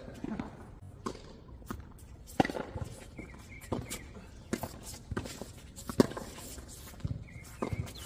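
Tennis balls struck by racquets and bouncing on a hard court during a rally: a series of sharp pops at irregular intervals, the loudest about two and a half seconds in and again at six seconds.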